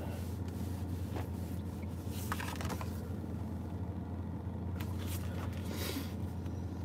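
Steady low hum of room tone, with a few soft rustles and handling noises about two and a half seconds in and again near five to six seconds in.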